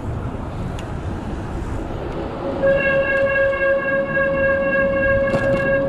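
Wind and street noise while riding an e-bike through city traffic. About two and a half seconds in, a steady pitched tone starts and holds unchanged without a break, louder than the ride noise.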